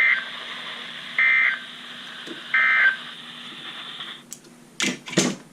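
NOAA Weather Radio sending the three short end-of-message SAME data bursts, each a brief two-tone digital screech, about 1.3 seconds apart. Under them is a steady radio hiss that cuts off about four seconds in as the broadcast closes.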